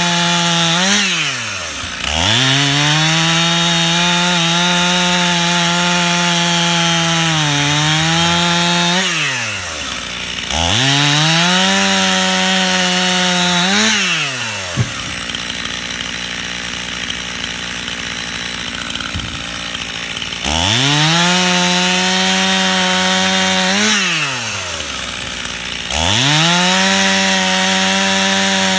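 Stihl chainsaw cutting through limbs in repeated full-throttle bursts of a few seconds each, with the engine falling back to idle between cuts and idling longer once about halfway through.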